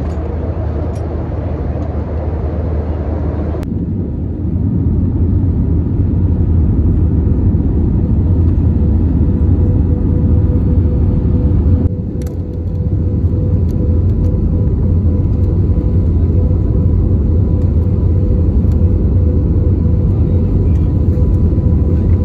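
Cabin noise of an Airbus A320-family airliner on final approach with flaps extended: a steady, loud low rumble of engines and airflow with a faint steady hum above it. The sound changes abruptly twice, about four and twelve seconds in.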